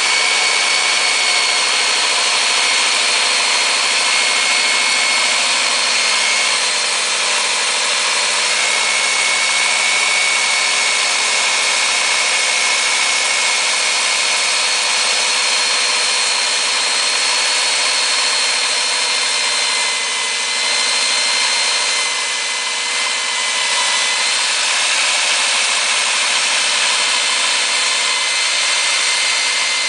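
KOR-IT K-806 electric core drill's 1500-watt motor running under load as its core bit, fed down on a drill stand, cuts into a concrete slab. A high steady whine sits over grinding noise and sags briefly about two-thirds through.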